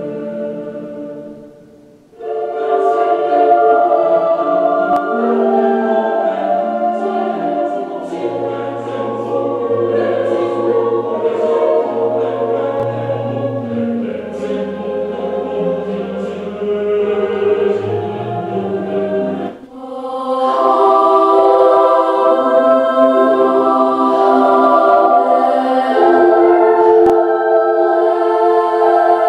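Choral singing music played back over a Bose Acoustimass 5 speaker system. One passage fades out, a new one begins about two seconds in, and near the twenty-second mark the music breaks off briefly before another passage starts.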